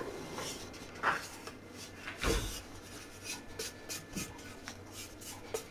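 Spatula scraping powdered sugar and lemon zest down the inside walls of a Thermomix stainless-steel mixing bowl: a few soft, irregular scrapes, one louder about two seconds in.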